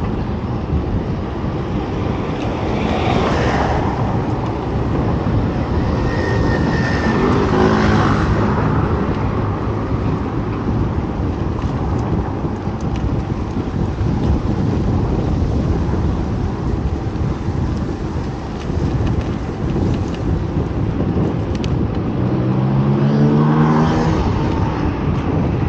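Road traffic with a steady low rumble. Passing vehicles, and an engine rising in pitch as it speeds up, about 7 seconds in and again near the end.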